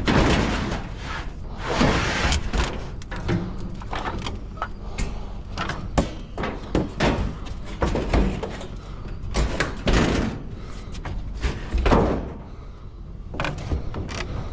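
Scrap metal being handled: an irregular run of clanks, knocks and scraping, with the loudest hits about two, ten and twelve seconds in.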